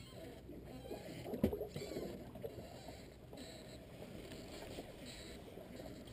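Water lapping and splashing against the hull of a small drifting boat, with a single hard knock about a second and a half in.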